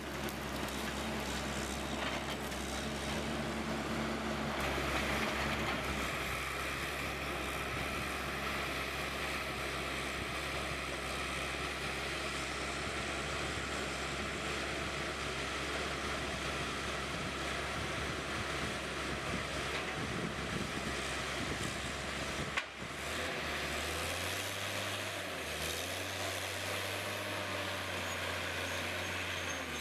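Heavy machinery engine running steadily. About three quarters of the way through the sound cuts off abruptly and a different engine takes over, its low hum shifting in level every second or two.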